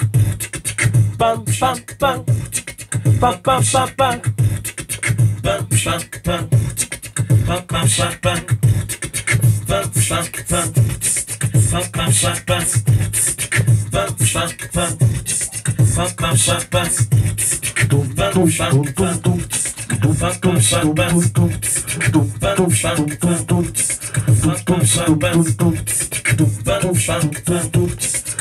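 Beatboxing through a microphone, layered on a loop station: a steady beat of mouth-made drum sounds over a deep bass line, with pitched vocal melody lines on top.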